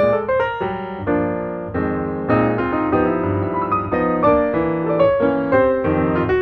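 Background piano music: a continuous run of quick notes and chords.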